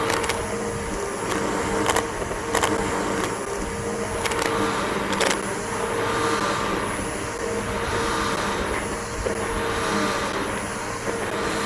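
Bissell BigGreen PowerForce upright vacuum cleaner running steadily over lawn grass, its motor holding an even tone. Sharp clicks sound several times in the first half.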